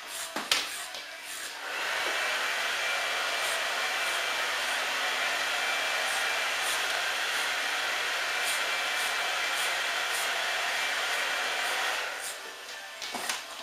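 Corded electric hair clippers running steadily while cutting clipper-over-comb, starting about two seconds in and stopping shortly before the end. A sharp click comes just before they start.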